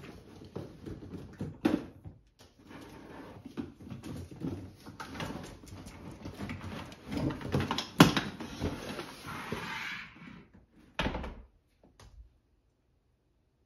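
Cardboard box and plastic machine being handled as a Bissell Little Green spot cleaner is lifted out of its shipping box: scraping and rustling of cardboard, with a sharp knock about eight seconds in, the loudest sound, and a thump around eleven seconds. The sound then cuts out entirely about a second before the end.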